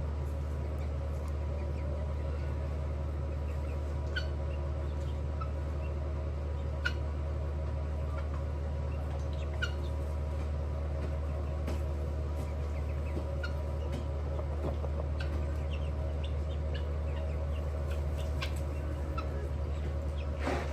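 Chickens making scattered short calls over a steady low hum.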